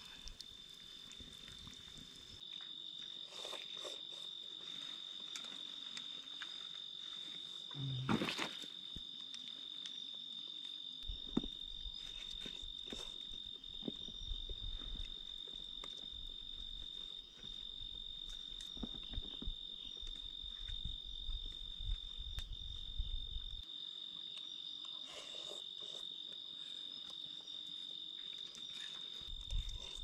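Night insects calling in one steady, unbroken high-pitched trill, with a single sharp knock about eight seconds in and a few small clicks.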